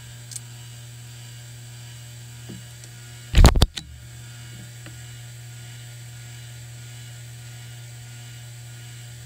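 Bench buffer's electric motor running steadily with its cloth buffing wheel spinning free, a constant hum. About three and a half seconds in, a brief loud clatter of several knocks close together cuts across it.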